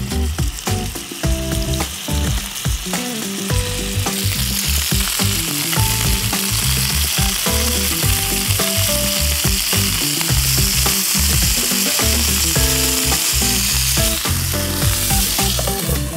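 Chicken kebab skewers shallow-frying in olive oil in a pan, a steady sizzle that grows louder about four seconds in. Clicks and knocks sound in the first few seconds.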